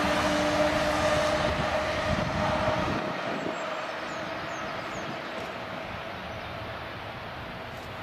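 A train passing on the track and moving away: its rumble and a steady whine fade over the first few seconds.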